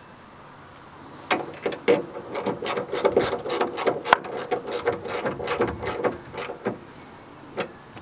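Socket ratchet clicking in quick strokes as it tightens a nut on a starter solenoid terminal, several clicks a second for about five seconds, then one more click near the end.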